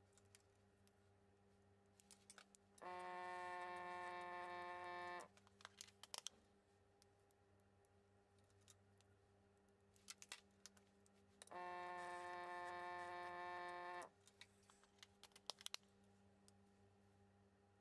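Vortex-Genie bench vortex mixer run twice, a steady buzzing hum of about two and a half seconds each time, starting and stopping abruptly, to mix tubes of soil-sample dilution. Light plastic clicks of tube caps and pipette in between.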